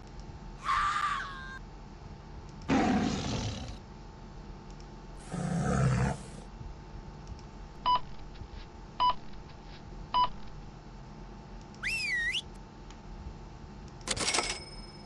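A string of short, unrelated synthetic sound effects with brief gaps between them: a few noisy bursts, one of them low and heavy, then three short beeps about a second apart, a swooping whistle, and a last noisy burst.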